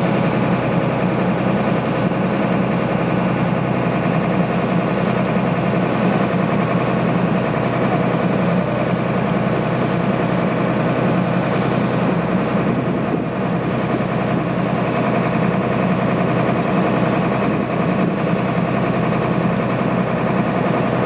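Motorboat engine running steadily at an even speed.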